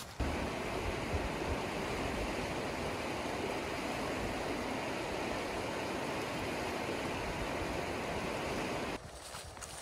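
Shallow, fast-flowing river rushing over stones and gravel bars: a steady rush of water that cuts off near the end.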